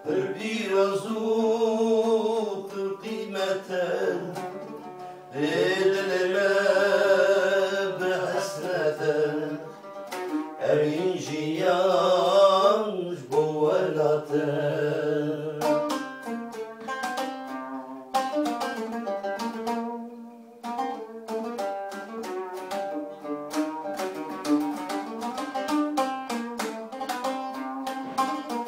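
An oud being plucked while a man sings a wavering, ornamented song line over it; about halfway through the voice stops and the oud carries on alone with quick picked notes.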